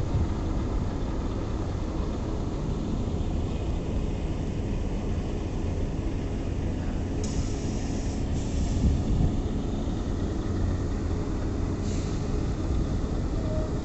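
A steady low mechanical rumble of running machinery with a faint hum, broken by a few brief hisses.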